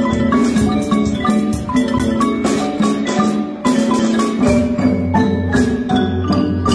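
Live percussion-ensemble music: marimbas and xylophones play quick struck notes in a steady rhythm. Low bass notes come in about five seconds in.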